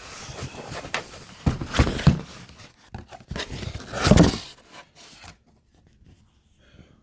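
Rummaging through stored stock: irregular rustling and clacks of handled items and packaging, loudest about two and about four seconds in, then dying away about five seconds in.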